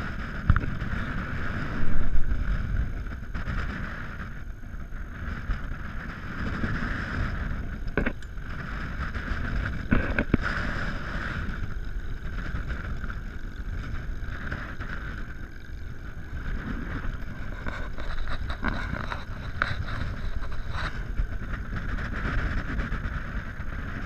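Wind rushing over the microphone of an open-cockpit powered-parachute trike in flight, over the steady drone of its engine and propeller. There is a strong gust about two seconds in and a few brief knocks around eight and ten seconds in.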